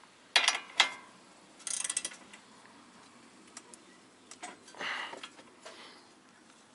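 Ratchet wrench with an 18 mm deep socket clicking on a front suspension bolt: a couple of single clicks, then a quick run of ratchet clicks about two seconds in. A brief rustle comes about five seconds in.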